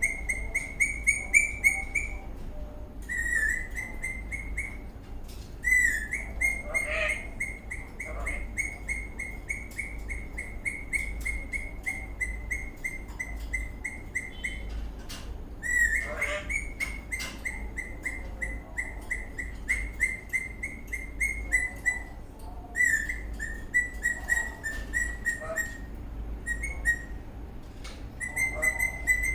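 Eastern rosella parrot chirping in long runs of rapid, evenly repeated notes at one steady pitch, broken by short pauses every few seconds.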